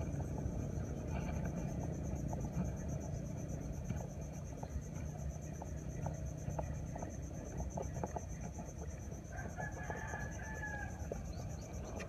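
A rooster crowing faintly, one drawn-out crow about nine and a half seconds in, over a steady high insect buzz.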